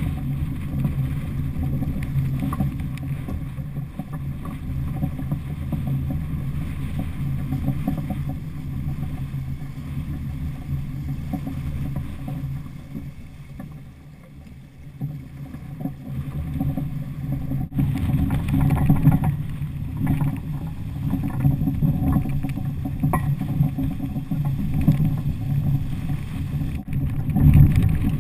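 Water rushing along the hull of a Laser II sailing dinghy moving fast under sail, mixed with wind buffeting the camera housing. It drops away briefly about halfway through, then builds up louder.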